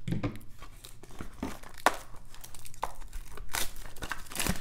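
Cellophane shrink-wrap on a trading-card box crinkling and tearing as it is slit and peeled off by hand, in irregular crackles and snaps.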